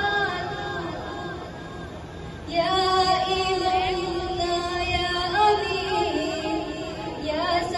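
A girl's voice singing a naat into a microphone, a slow melody of long held, wavering notes. A softer phrase trails off, then a louder phrase begins about two and a half seconds in.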